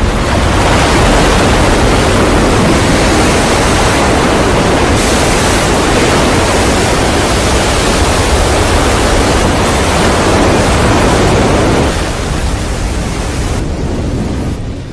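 Loud, steady rushing noise with no pitch or rhythm, which drops in level about twelve seconds in.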